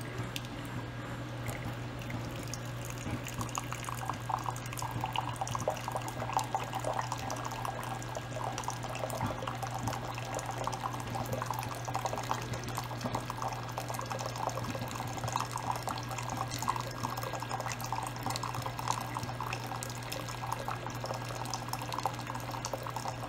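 Single-serve pod brewer dispensing a thin stream of hot liquid into a ceramic mug, a steady splashing trickle over a continuous low hum from the machine.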